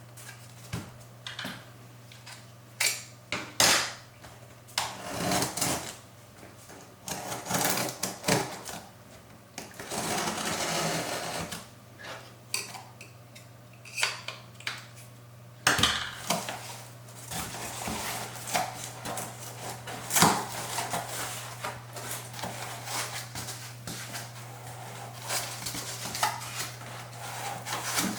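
Handling noises from unboxing a boxed 2-inch astronomy filter: irregular clicks, taps and short rustles of the box and case, with a longer rubbing or sliding sound about ten seconds in. A steady low hum runs underneath.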